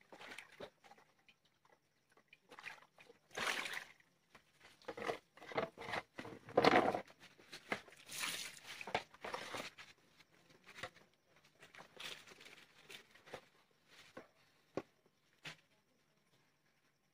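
Hands swishing and splashing water in a plastic basin while washing vegetables, with plastic bowls and a plastic basket being handled; the loudest bursts come in the middle. Near the end only sparse small clicks and scrapes are left as a knife peels a potato.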